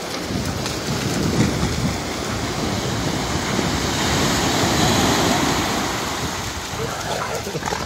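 Ocean surf breaking and washing up onto a sandy beach: a continuous rush that swells to its loudest about halfway through, then eases off.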